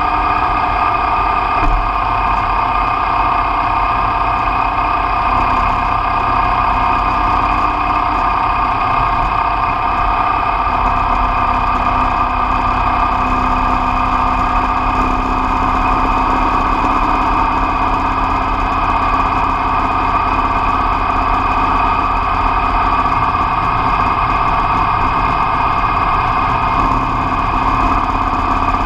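Motorcycle engine running at a steady cruise on the road, with steady wind rush over it.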